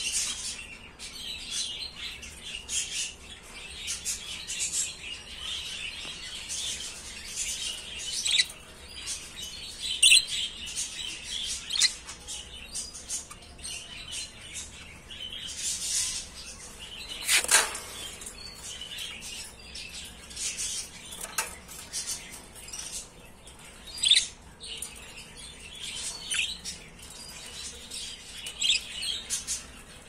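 Budgerigars chirping and chattering in short, high, irregular calls, with a few louder sharp sounds among them, the strongest about halfway through.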